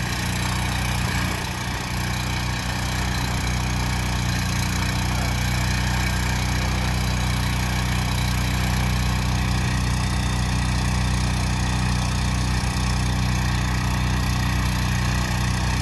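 Small gasoline engine on a Little Beaver hydraulic power unit running steadily, driving a hydraulic earth drill that turns a screw anchor into the ground.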